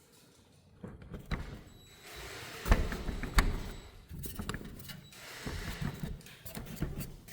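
Door being handled and closed against its frame, with several sharp knocks and thuds and some rattling in between.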